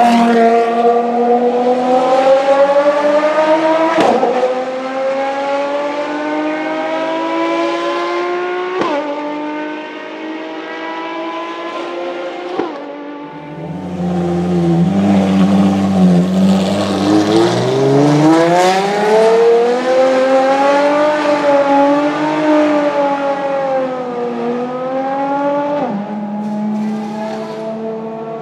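Ferrari FXXK Evo V12 engine accelerating with a rising note, with three sharp cracks as it shifts up, over a hiss of tyres on wet tarmac. Then a deeper, low-pitched V12 rumble climbs steeply, wavers and settles to a steady run.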